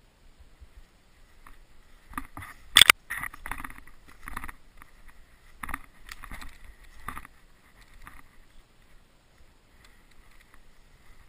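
Footsteps and rustling through snow-covered brush and twigs, irregular and uneven, with one sharp crack a little under three seconds in.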